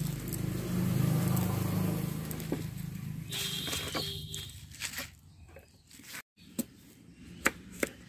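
A vehicle's engine rumbling as it passes on the road and fades away over the first few seconds, followed by a few sharp clicks near the end.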